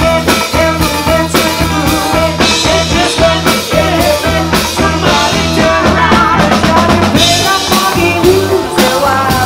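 Live band playing amplified: electric bass and drum kit keeping a steady beat while a woman sings into a microphone.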